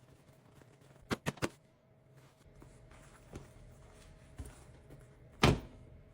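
Three quick sharp clicks about a second in, a couple of soft knocks, then a louder thump near the end.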